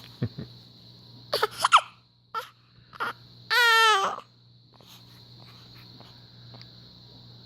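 A baby fussing: a few short, high squeaks and little cries, then a longer wavering cry about three and a half seconds in.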